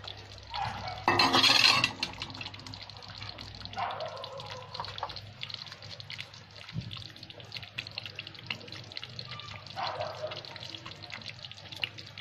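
Chicken khurma gravy simmering in an aluminium pot on the stove, a steady patter of small bubbling pops, with a louder noisy burst about a second in.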